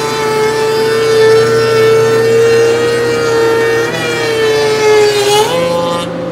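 Grizzly shaper cutting a groove in an oak cabinet board, its steady motor whine mixed with the hiss of the cutter in the wood. Toward the end the pitch sags under load, then jumps back up as the board clears the cutter and the cutting noise stops.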